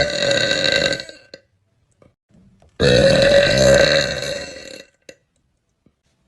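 A woman burping: a long, loud burp trails off about a second in, and a second drawn-out burp of about two seconds follows near the middle.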